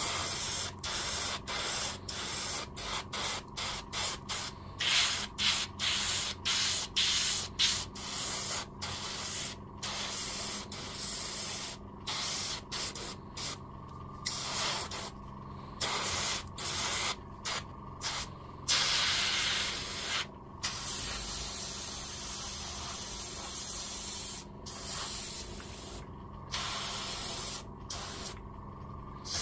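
Paint being sprayed onto a plastic scale model in many short hissing bursts, about one or two a second, with a few longer passes in the second half. A faint steady hum runs underneath.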